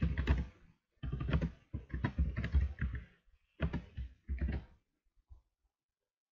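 Typing on a computer keyboard: quick runs of keystrokes in three bursts with short pauses between, stopping about five seconds in.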